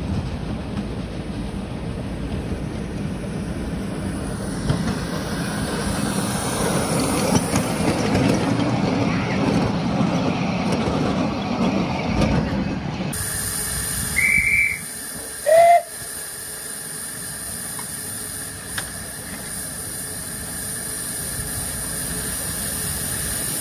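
A 7.25-inch gauge Tinkerbell-class miniature steam locomotive and a second miniature train run along the track, with wind noise on the microphone. After a cut the locomotive stands at the platform with a steady steam hiss and gives two short whistle toots, the second lower and louder.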